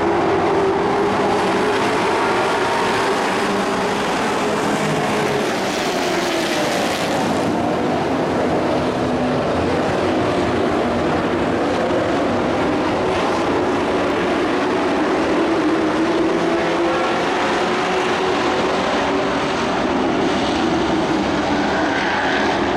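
A pack of dirt-track race trucks running together, many engines at once, their pitch rising and falling as the drivers accelerate down the straights and lift for the turns.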